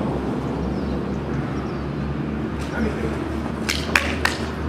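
Steady low rumble of background traffic, with three sharp hand claps in quick succession near the end.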